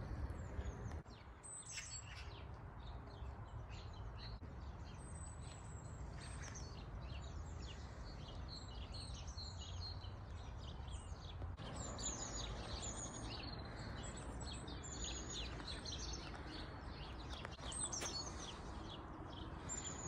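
Small birds chirping and singing, many short high notes repeated throughout, over a steady low background rumble.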